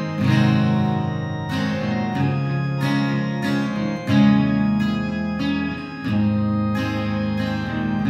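Instrumental hymn played on guitar: chords strummed in a slow, steady rhythm over held low notes.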